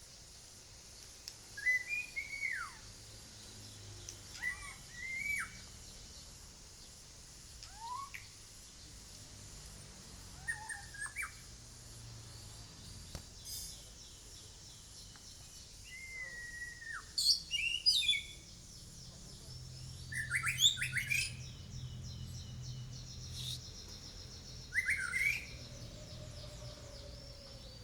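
Caged pet songbird calling in short whistled chirps every second or two, many of them dropping in pitch. About two-thirds of the way in come quicker clusters of higher, sharper notes.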